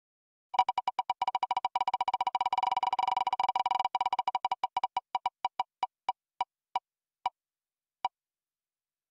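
Online spinning-wheel picker's tick sound effect, one short pitched click per name segment passing the pointer. The ticks start fast about half a second in, then slow steadily as the wheel loses speed, the last one coming about eight seconds in as the wheel stops.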